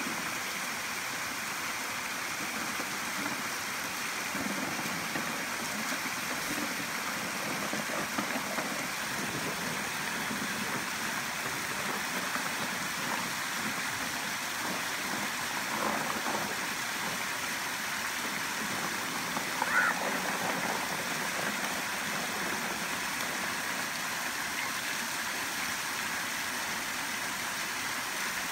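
Creek water running steadily over a small rock-ledge cascade, a continuous even rushing. About two-thirds of the way through, a brief, higher sound stands out over it.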